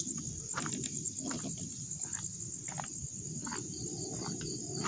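Night insects, crickets, chirping in a steady, fast-pulsing high trill, with scattered faint clicks and rustles.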